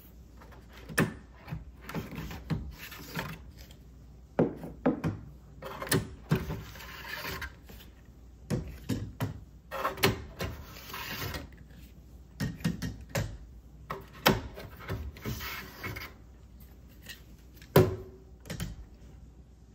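Hard-drive trays being pulled out of a Synology DS923+ NAS one after another: clicks as each tray front is pressed and released, scraping as the trays slide out of their bays, and knocks as the drives are set down on a wooden table, the loudest knock near the end.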